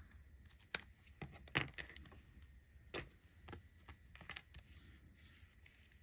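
Scissors snipping tape once, sharply, about a second in, then scattered soft clicks and taps of tape and paper being handled on a work surface.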